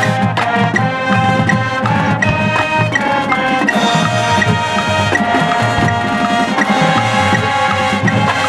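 Marching band playing its show music: sustained brass chords over struck mallet-keyboard notes and drums from the percussion.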